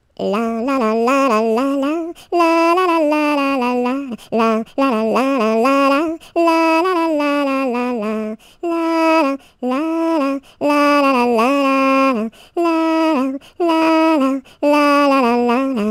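A solo high voice singing a children's song unaccompanied, in short phrases separated by brief pauses.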